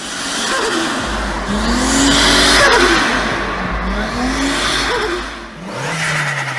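A turbocharged car engine revved hard twice, its pitch rising each time, with a loud rushing hiss near the top of each rev. It falls back toward idle near the end.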